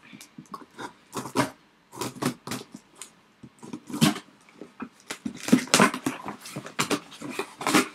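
Cardboard box being opened by hand: flaps pulled back and bent, with irregular scraping and rustling of cardboard and packaging, several louder scrapes toward the middle and end.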